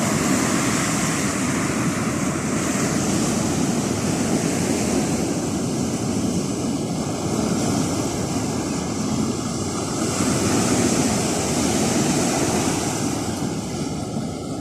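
Atlantic surf washing in at the shore, a steady rushing noise that swells and eases gently, with wind on the microphone.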